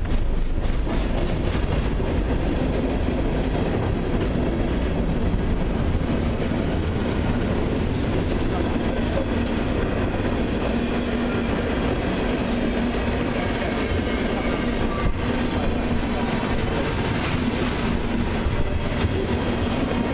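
Freight cars of a long mixed train rolling steadily past: the continuous rumble and clatter of steel wheels on rail as open-top hoppers, tank cars and flatcars go by, with a faint steady tone under it. Wind noise on the microphone.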